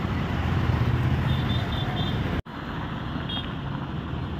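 Road traffic noise: a steady wash of vehicles running past on a busy road. The sound cuts out for an instant about halfway through, then carries on.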